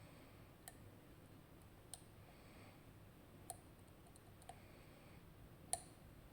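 Small, sharp metallic clicks from a lock pick and tension wrench working the pins inside a RUKO Garant high-security cylinder: about five irregularly spaced clicks, the loudest near the end, over near silence.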